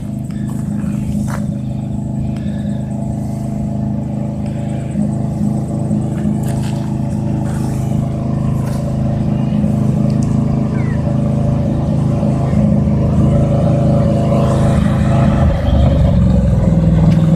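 Bedford truck engine running steadily as the truck approaches, growing gradually louder as it nears.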